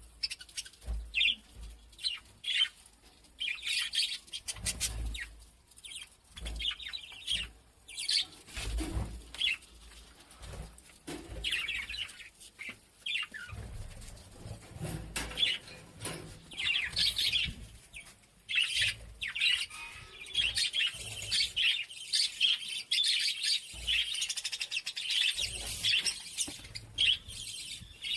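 Birds chirping and tweeting in quick, irregular calls, with a few dull low thuds now and then.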